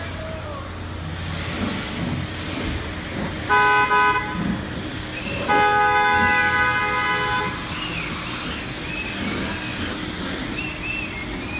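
Vehicle horn honking: two quick short toots, then one longer blast of about two seconds, over steady road and engine noise.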